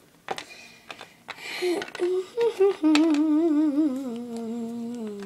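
A girl humming a tune with a wavering vibrato, beginning about two seconds in, stepping down in pitch and holding a long low note near the end. A few light taps of the toys on the table come before it.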